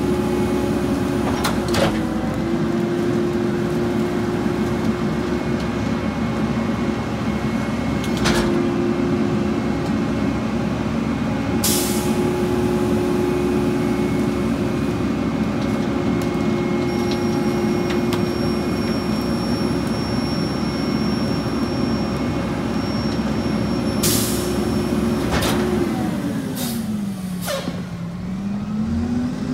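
Mack LE garbage truck's diesel engine held steady at raised revs while the EZ Pack Goliath rear loader's packer runs through its compaction cycle, with several clanks and short hisses of air. Near the end the engine drops back and then revs up again.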